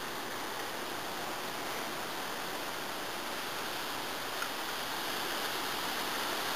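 A steady, even hiss, with one faint click about four and a half seconds in.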